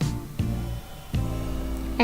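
Background music: plucked acoustic guitar, a new chord struck about every half second to second.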